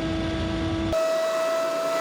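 Scag Windstorm stand-on leaf blower running, a steady engine rumble under a whining fan tone. About a second in the sound changes abruptly: the low rumble drops away and the whine becomes higher and clearer.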